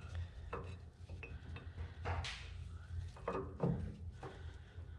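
Small steel parts of a tractor rear hub clinking and knocking as they are handled and fitted: the wedge-shaped pinch pieces and pinch bolt going into the hub. Scattered short clicks, with a steady low hum underneath.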